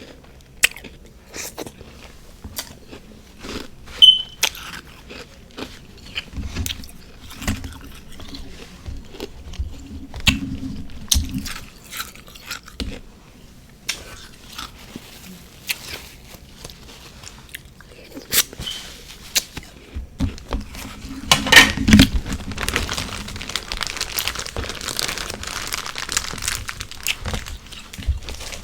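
Close-up crunching and chewing of refrozen freezer frost mixed with powdered sugar and whipped cream: scattered sharp crunches and crackles, with a loud burst of crunching about 21 seconds in followed by steady crackling chewing.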